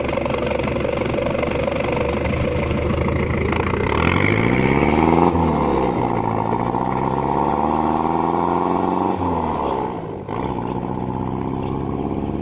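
Mitsubishi L300's 4D56 four-cylinder diesel running through a straight-piped exhaust with the muffler deleted. It idles, is revved up about four seconds in, holds higher revs for a few seconds, then drops back to idle.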